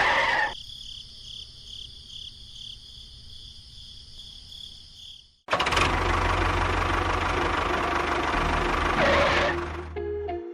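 A motor running, in two takes. First a thin, high whine that pulses about twice a second, then after a sudden cut a fuller, steady running sound with a low hum.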